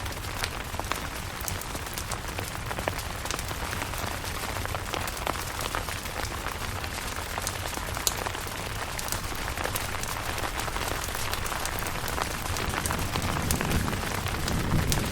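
Steady rain falling on a camping tent, with many sharp single drops ticking through it. A low rumble of thunder builds near the end.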